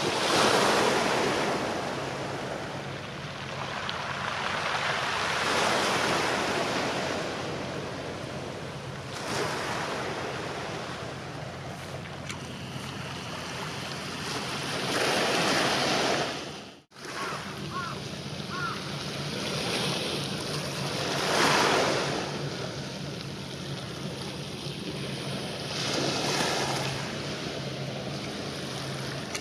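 Small waves washing onto a pebble beach, the rushing swelling and fading every five or six seconds, over a low steady hum. The sound drops out for a moment a little past halfway.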